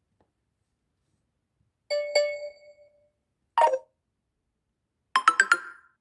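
Short built-in Samsung Galaxy A71 alert tones, played one after another: a two-note chime about two seconds in, a brief single blip a second and a half later, and a quick run of about five notes near the end.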